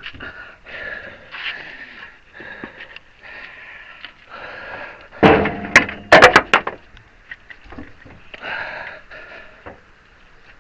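Workshop handling noise from a hydraulic ram being reassembled, with a quick cluster of several sharp metal knocks and clanks between about five and seven seconds in as the parts are worked into place.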